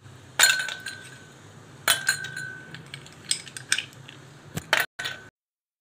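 Ice cubes dropped into stemmed glass goblets, a run of sharp clinks. The two loudest, about half a second and two seconds in, ring on briefly like struck glass.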